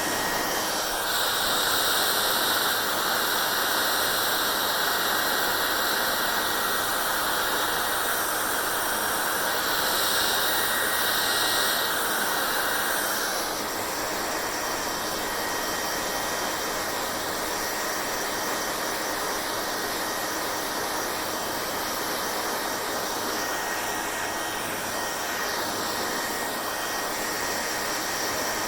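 Electric hair dryer blowing steadily with a loud airy whoosh and a faint motor whine. The hiss is brighter and a touch louder from about a second in until about halfway, then settles slightly duller.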